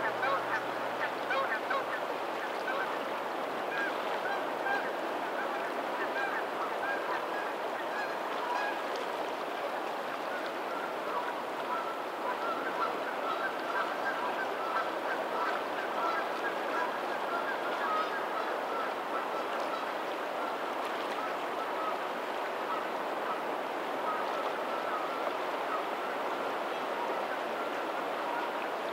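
Steady rush of water where a lagoon's tidal outflow meets the sea, with a flock of birds giving many short, repeated calls over it.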